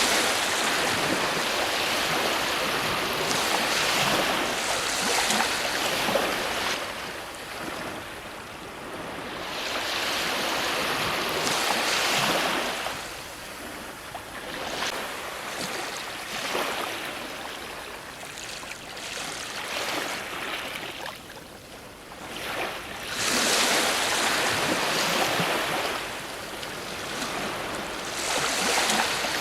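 Ocean waves breaking on a shore. Each wave swells into a rushing wash of surf and then ebbs, every few seconds, with the biggest breaks at the start, about ten seconds in, and near the end.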